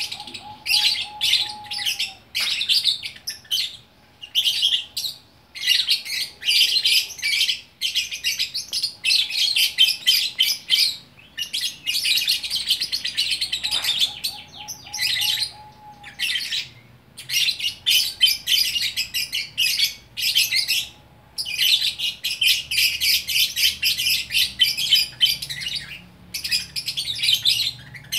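Lovebird singing in full flow ('gacor'): long runs of rapid, high-pitched chattering trills lasting several seconds each, with short breaks between them.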